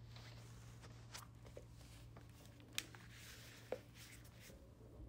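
Near silence: a steady low hum of room tone, with a few faint clicks and taps as a phone's metal frame and a glue tube are handled while glue is squeezed along the frame edge.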